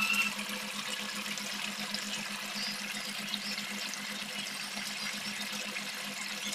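Meat curry simmering in a wok, a steady bubbling sizzle, with a low steady hum underneath.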